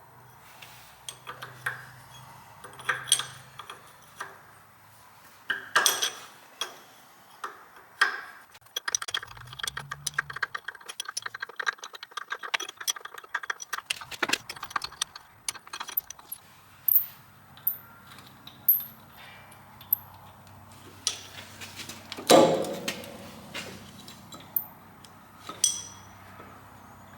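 Spanner work on the steel nuts holding a steam traction engine's clack valve to the boiler: scattered metal clinks and taps, a run of quick clicks in the middle, and one louder clank near the end as the nuts and valve come free.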